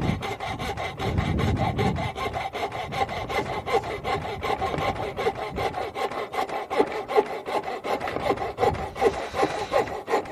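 Coping saw cutting through a wooden board by hand: a steady run of quick rasping strokes, about five a second.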